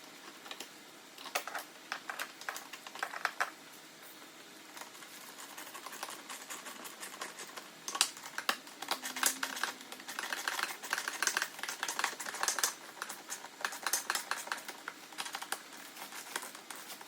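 Hand tools and small screws at work fastening a mirror to a plastic snowmobile windshield: bursts of light, rapid clicking and tapping, sparse at first and busier in the second half.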